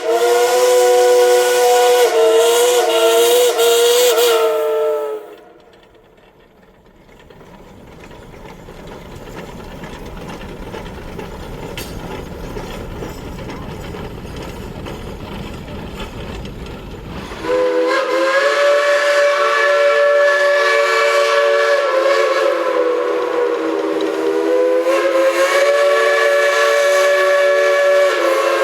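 Steam locomotive chime whistle blowing a long chord of several notes, which cuts off about five seconds in. About twelve seconds of low noise follow, slowly growing louder. Then a whistle chord sounds again suddenly and holds, dipping slightly in pitch partway.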